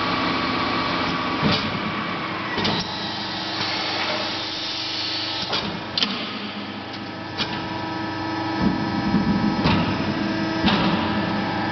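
Mubea CNC punching machine running: a steady motor hum with sharp clunks at irregular intervals, about seven of them.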